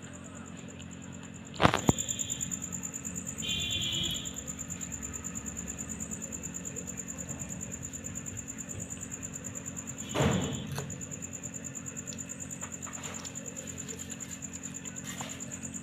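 Crickets chirping in a steady, high, rapidly pulsing trill. Two sharp clicks come about two seconds in, and a thump around ten seconds.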